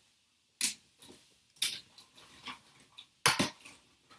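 Rummaging through a container of puzzle cubes and other small objects: irregular plastic clacks and rattles, with the loudest clatter near the end.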